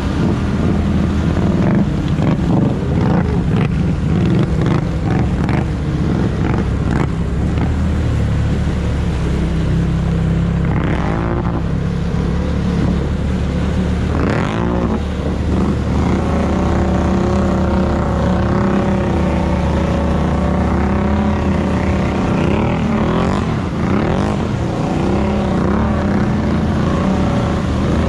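Snorkeled mud-riding ATV engine running hard, revving up and falling back a few times, then holding a steadier pitch in the second half.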